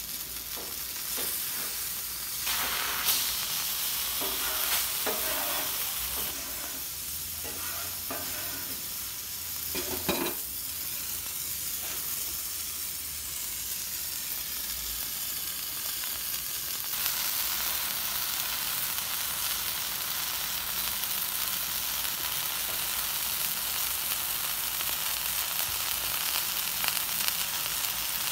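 A block of raw ground beef sizzling as it sears on a hot steel Blackstone flat-top griddle, a steady hiss with a few brief knocks in the first ten seconds. The sizzle grows louder about two-thirds of the way through.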